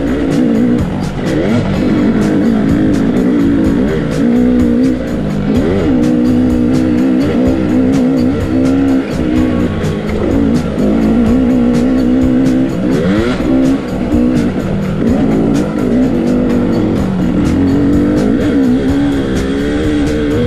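Off-road motorcycle engine revving up and down again and again while riding a rough track of whoops and washouts, with music playing over it.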